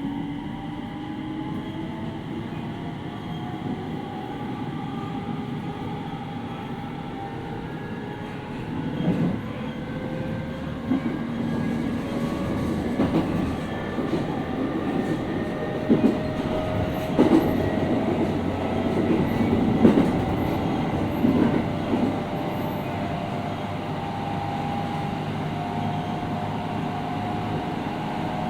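Inside the motor car of a JR East 701 series 5500 subseries electric train: the traction motors' whine climbs slowly in pitch as the train gathers speed, under steady wheel and rail rumble. From about a third of the way in to three-quarters, a string of sharp clacks from the wheels crossing rail joints rides on top.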